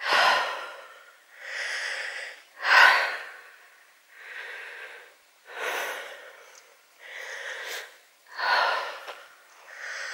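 A person breathing hard close to the microphone, a stronger and a weaker breath in turn, each pair taking about three seconds.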